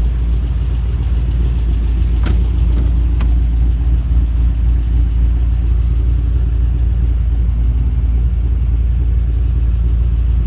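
Holden Commodore SSV's 6.0-litre V8, fitted with a performance camshaft, idling steadily with a low rumble. Two sharp clicks about two and three seconds in.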